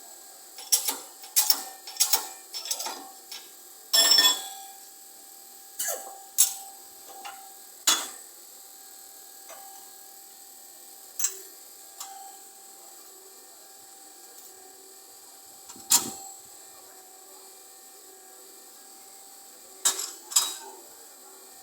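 Sharp metallic clicks and clanks, about a dozen at irregular intervals over a faint steady hum, as a worn wheel bearing is worked out of its housing with a press. The loudest clanks come about four seconds in and again some seconds later.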